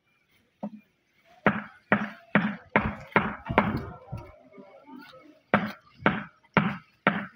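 Repeated heavy blows, about two a second, each a dull thud with a sharper crack: a run of six, a short lull, then another run of four.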